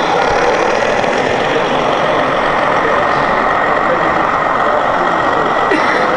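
Simulated diesel engine running steadily, played by an RC model machine's sound module.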